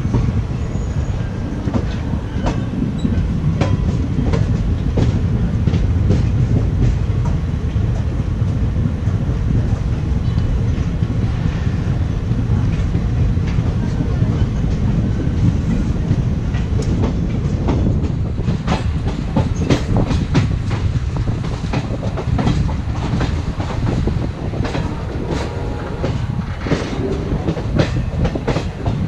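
Indian Railways express passenger train running at speed, heard from on board: a steady low rumble with wheels clicking over rail joints, the clicks coming thicker and sharper in the last third.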